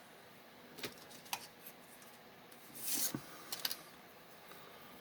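Handling noise as small objects are moved by hand: a couple of light clicks, a brief rubbing swish about three seconds in, then a quick pair of clicks.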